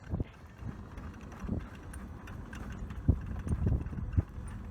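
Wind buffeting an iPhone's microphone: irregular low rumbling gusts, heaviest about three seconds in.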